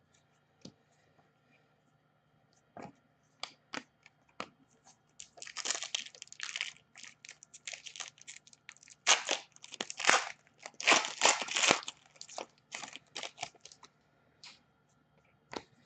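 A trading card pack wrapper being torn open and crinkled in several rustling bursts, with scattered light clicks and taps of cards being handled before and after.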